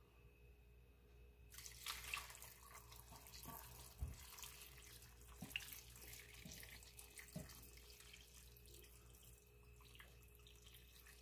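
Broth being poured from a stainless steel pot into a pan of vegetables and ham, a faint splashing pour that starts about a second and a half in and thins out near the end, with a few light knocks along the way.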